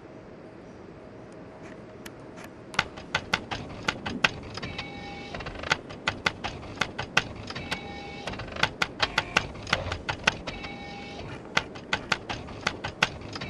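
Rapid, irregular sharp clicks start about two and a half seconds in, and a short electronic beep repeats about every three seconds over them.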